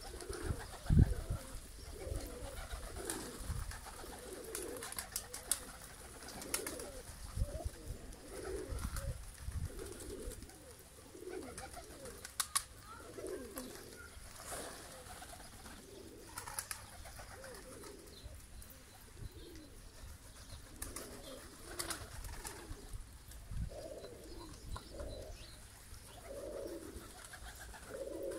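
Trakya Makaracı pigeons cooing over and over, short low calls about once a second from several birds. A few low thumps come near the start.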